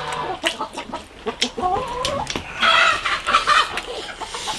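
Chickens clucking, with one louder, longer squawk a little past the middle, among scattered sharp clicks of chopsticks against bowls.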